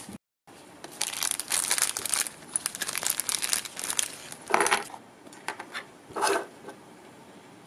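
Clear plastic bag crinkling as small plastic miniature pieces are pulled out of it, with a couple of short clacks of the hard pieces being dropped or set down on a tabletop in the second half.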